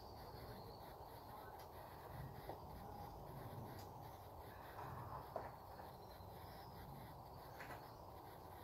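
Quiet outdoor ambience with faint bird calls, and one short sharp click about five seconds in.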